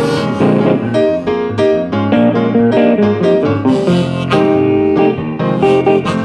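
Blues band playing an instrumental passage, with guitar lines to the fore over piano.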